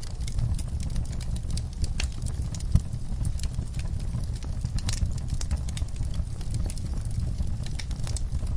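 Crackling fire: irregular sharp pops and snaps over a steady low rumble, with one louder pop a little under three seconds in.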